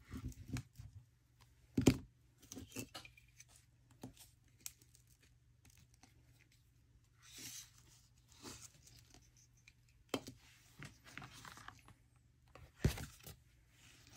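Paper pages being handled while they are glued together: short bursts of paper rustling and crinkling, with scattered sharp taps, one about two seconds in and the loudest near the end.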